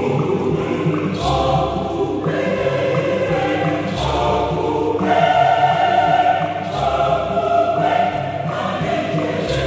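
Large church choir singing an Igbo choral piece in harmony, with held chords changing every second or so and drum accompaniment, a heavy beat falling about every three seconds.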